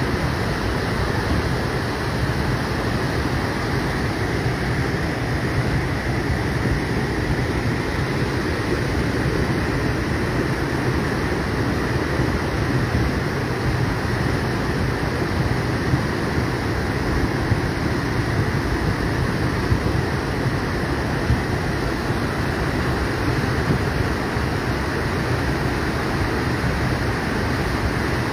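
Muddy flash-flood torrent rushing down a stony river bed: a loud, steady, deep rush of water.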